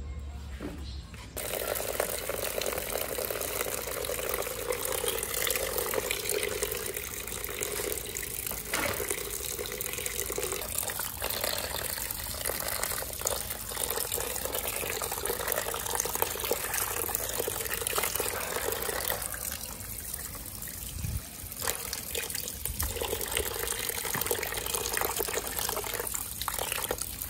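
Water running from a tap into a sink, starting about a second in, with an uneven splashing rush.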